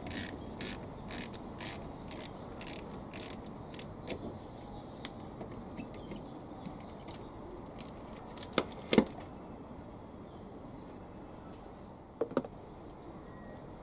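Socket ratchet wrench loosening a car battery's positive terminal clamp nut, its pawl clicking in strokes about twice a second for the first few seconds, then only a few scattered clicks. The loosened clamp is worked off the post with two sharp knocks near the middle and another pair near the end.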